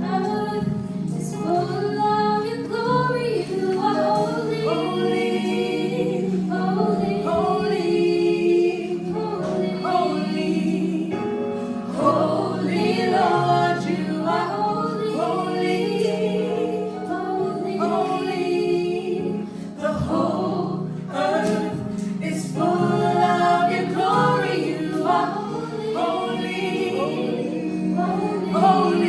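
Choir singing a gospel song over a steady instrumental accompaniment.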